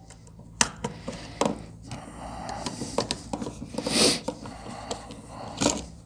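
Screwdriver and GFCI receptacle handling while a ground wire is tightened under the terminal screw: scattered small clicks and taps of metal and plastic. A short rushing noise about four seconds in is the loudest sound, with a smaller one near the end.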